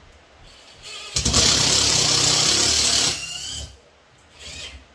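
Cordless drill/driver driving a ceiling-plate mounting bolt: the motor runs for about two seconds and then winds down. A short, quieter sound follows near the end.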